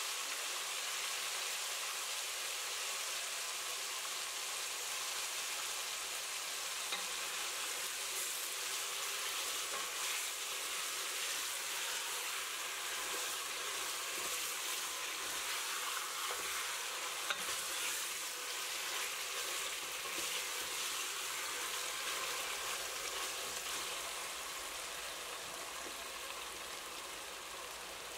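Curry-coated boneless chicken thigh pieces sizzling in hot oil in a steel pot, a steady frying crackle, with a wooden spoon stirring them partway through. The sizzle eases slightly near the end.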